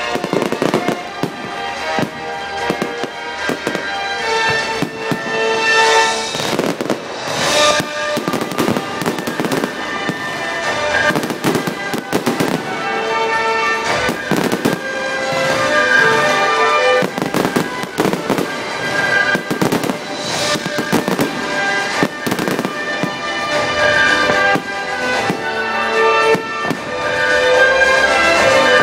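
Fireworks shells bursting overhead in a rapid, irregular series of bangs, with music playing throughout.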